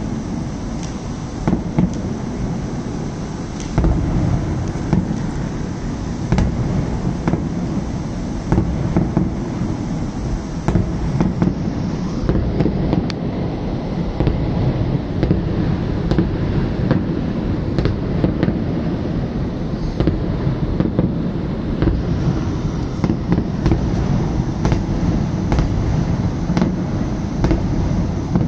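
Aerial fireworks going off in a continuous barrage: frequent sharp bangs over a constant low rumble of overlapping bursts.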